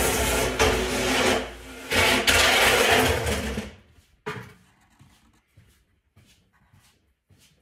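Marker scraping along a wooden hockey stick lying on a plywood bench: loud, scratchy rubbing in two long strokes that stops suddenly about four seconds in. Only light, short strokes follow, a few a second.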